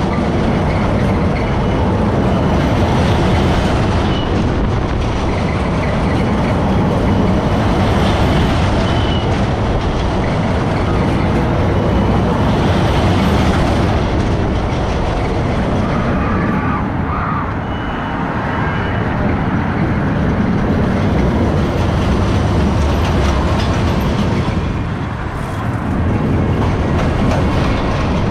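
Inverted looping roller coaster train running on its steel track, a steady loud rumble of wheels and rushing air that dips briefly twice, near the middle and near the end, as the train slows.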